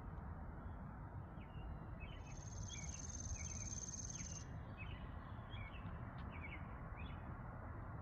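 Small birds chirping in short, scattered notes over a steady low background hiss and rumble. About two seconds in, a high, even trill sounds for roughly two seconds.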